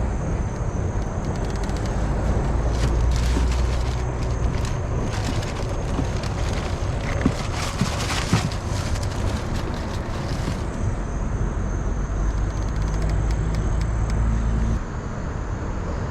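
Steady rushing outdoor noise with a heavy low rumble, typical of wind on the microphone over flowing river water. A run of small clicks and a couple of sharp knocks comes in the middle, from handling fishing gear on a kayak.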